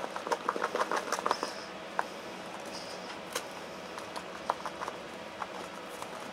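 Cardboard box of baking soda being shaken over a plastic bowl of water: a quick run of light taps and rattles in the first second and a half, then scattered single taps.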